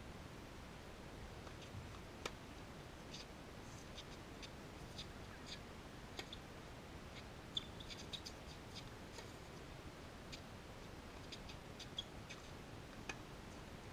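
Faint tennis play: a steady quiet background with scattered sharp ticks, the loudest about seven and a half and twelve seconds in, fitting racket strikes on the tennis ball.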